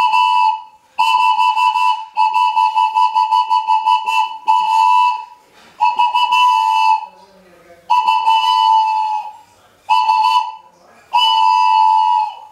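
A 3D-printed two-chamber train whistle blown by mouth in about eight short, loud blasts, each holding a steady high note, some with a fast fluttering warble. It sounds much like a train whistle.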